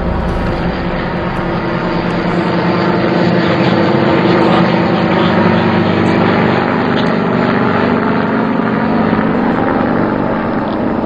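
Enstrom 480B turbine helicopter running: a loud, steady blend of turboshaft engine and rotor noise.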